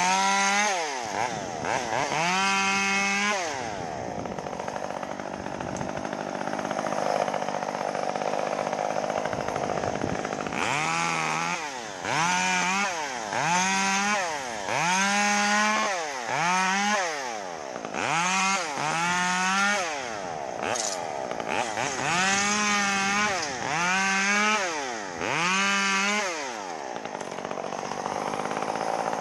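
Two-stroke chainsaw revving up and down in about a dozen short bursts of roughly a second each while trimming a palm tree, dropping back toward idle between bursts. It runs at a lower, steadier level for several seconds in the first third.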